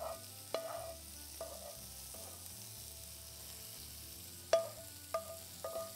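Wooden spatula scraping sauce out of one nonstick frying pan into another and knocking against the pans, with several sharp knocks that each leave a short ringing tone, the loudest about four and a half seconds in. A faint sizzle from the pan on the hob runs underneath.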